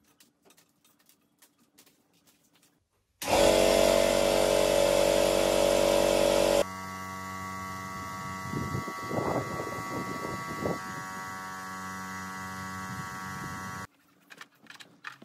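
A small electric motor whining steadily. It starts abruptly about three seconds in and is loud for about three seconds, then runs on quieter at a different pitch with some irregular rattling in the middle, and stops suddenly near the end.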